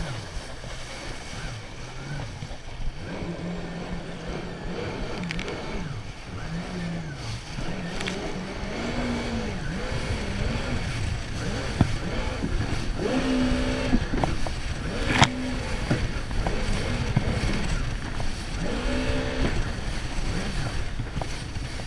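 Jet ski engine running at speed, its pitch wavering up and down as the hull rides over the chop, under a constant rush of water spray and wind. A few sharp knocks, the loudest about fifteen seconds in.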